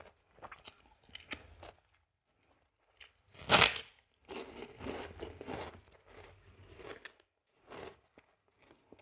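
Close-miked eating: a loud crunch as a large white kerupuk cracker is bitten about three and a half seconds in, followed by several seconds of crunchy chewing. Softer mouth clicks of chewing rice come before it.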